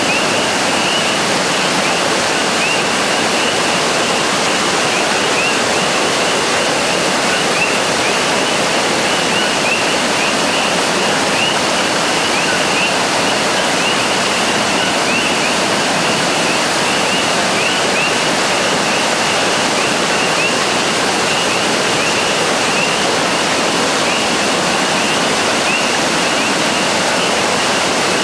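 A rain-swollen river rushing steadily over rocks, loud and unbroken. Many short high chirps sound over it.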